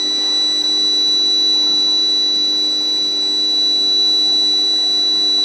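Induction heating machine running while surface hardening steel plate: a steady, high-pitched electrical whine with a lower hum beneath, unchanging throughout.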